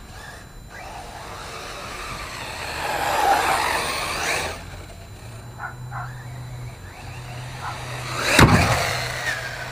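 Arrma Typhon RC buggy's 2150kv brushless motor on 4S whining as it speeds up and backs off, with its tyres working the dirt. Near the end it hits the ground with one loud thump as it lands a jump.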